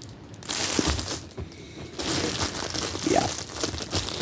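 Plastic packaging crinkling and rustling as it is handled, in two stretches with a short lull between.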